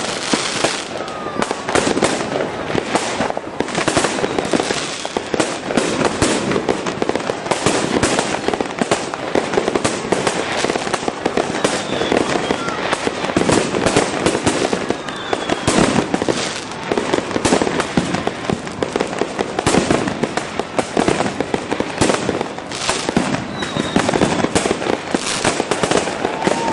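Aerial fireworks display: a continuous barrage of bursts and crackling reports, with a few short falling whistles.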